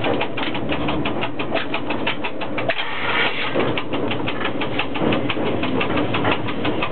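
Cab of a ChS4T electric locomotive running slowly: a steady hum with a rapid, even clicking of about six clicks a second.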